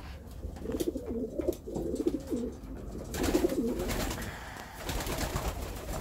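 Racing pigeons cooing: a warbling bout from about a second in, then a shorter one a little after three seconds.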